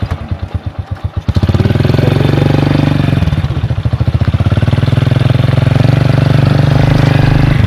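Small motorbike engine running under two riders: separate low putts at first, then about a second in it grows louder and denser as the bike speeds up, and it holds a steady drone.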